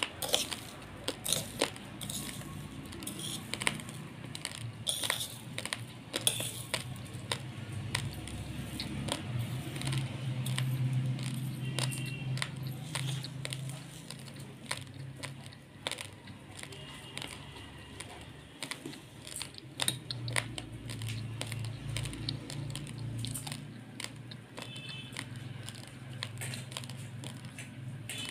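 Uncooked basmati rice being chewed close to the microphone: a steady run of sharp crunches and crackles, with a duller chewing rumble that swells and fades, and now and then a steel spoon clinking in the steel plate of rice.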